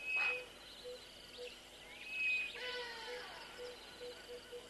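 Wild birds calling: two loud whistled calls with sliding pitch, one near the start and one about halfway through, over a steady repeated low pip that quickens near the end. The lion is not roaring.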